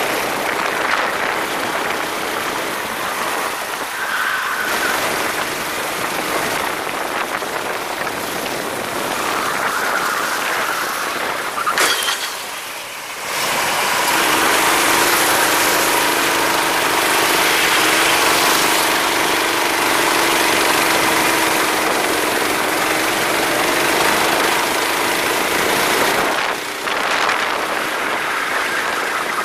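Go-kart engine running under way in a race, mixed with rushing noise; a brief dip near the middle, then a louder, steadier engine note through most of the second half.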